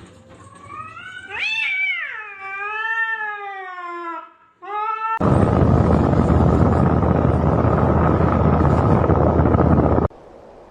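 A cat's long, drawn-out yowling meow with a wavering, falling pitch, then a short second meow. A loud, steady rushing noise follows for about five seconds and cuts off suddenly.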